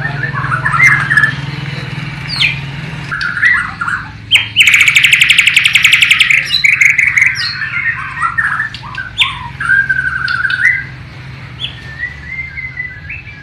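Borneo white-rumped shama (murai batu) singing a varied song of short whistled phrases, with a loud, rapid buzzy trill a few seconds in and a held whistle near the end; the song carries mimicked phrases of the sikatan londo (nightingale).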